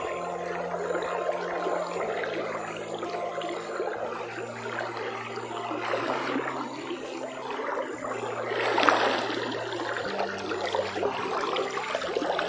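Shallow stream water rippling and gurgling over stones close to the microphone, with a brief louder rush of water about nine seconds in.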